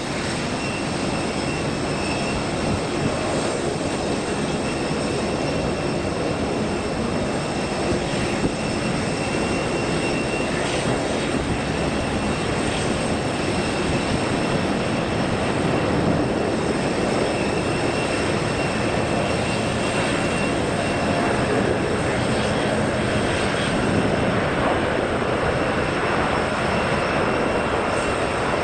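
Jet engines of a large airliner landing close by: a steady, loud rush with several high whining tones held over it.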